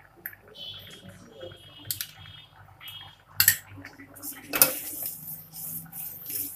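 Stainless-steel spoon and ladle clinking and scraping against a steel bowl and cooking pot as whipped cream is scooped into thick rice kheer and stirred in. There are a few sharp taps, the loudest about halfway through, then steady scraping of the ladle in the pot.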